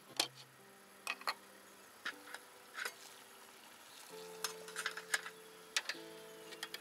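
Sharp metallic clicks and clinks, about a dozen, from a metal flip lid being opened and cups being handled. Under them, soft guitar practice plays held chords.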